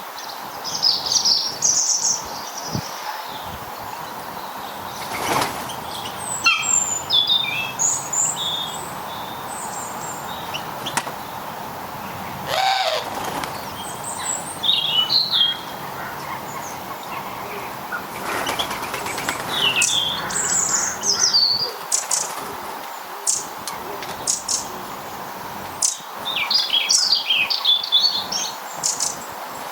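Small garden birds chirping and twittering in repeated short bursts of high calls, with a brief broader rushing sound about halfway through.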